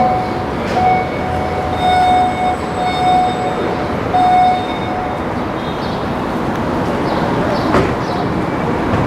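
Light rail train's bell ringing about six times in quick, uneven strikes over the first five seconds, over the steady rumble of the train running past, which carries on after the bell stops.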